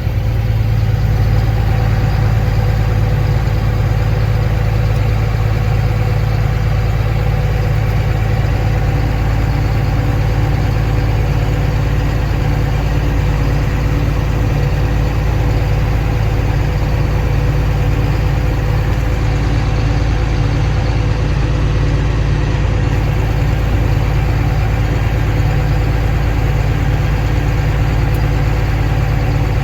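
Diesel engine of harvest machinery running steadily at a constant speed, a loud, even hum with no revving.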